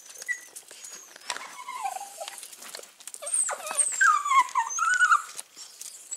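Italian greyhound whining: a run of high, wavering whines that slide downward in pitch, the loudest and longest coming from about halfway through.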